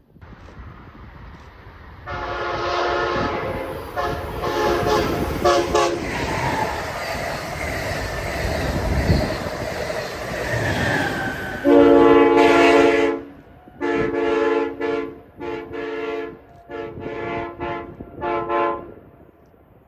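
An Amtrak electric train sounds its Nathan K5LA five-chime air horn, a chord of several tones. A few blasts come as it approaches, then the train rushes past. A long loud blast follows, then a run of about six short blasts.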